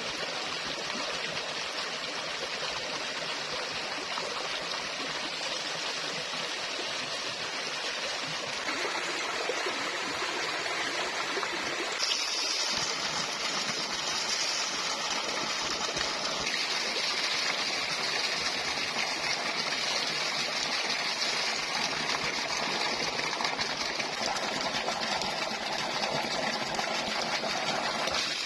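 Flowing water, a steady rush like a small stream, growing a little louder and brighter about a third of the way through and again nearly halfway.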